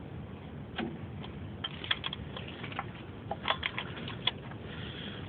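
Light metallic clicks and clinks in scattered clusters: a wrench working on a starter mounting bolt.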